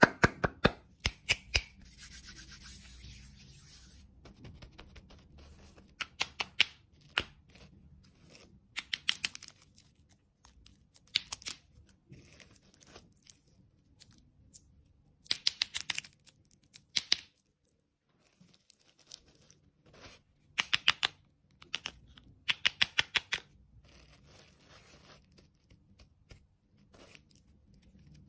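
Candy packaging being handled and opened: bursts of quick, sharp clicks every few seconds, with rustling and tearing in between.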